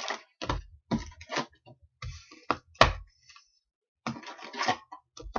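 Cardboard hobby box being emptied: foil card packs rustling and knocking onto a table in short, irregular bursts, with a few sharper knocks.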